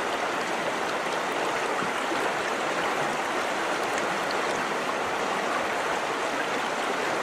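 River water flowing and splashing over rocks, a steady rushing sound.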